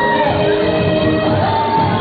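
Loud dance music playing in a hall, with long held melody notes over a busy backing.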